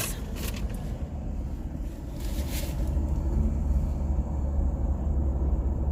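Low, steady rumble of a car, growing louder about two seconds in, with a few faint brief noises over it.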